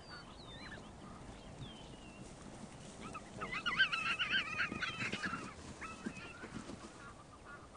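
A zebra calling: a wavering, braying cry lasting about a second and a half near the middle. Faint bird chirps run around it.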